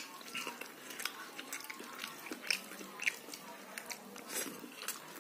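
A person biting and chewing a fried eggplant slice and rice, with irregular wet mouth clicks and smacks.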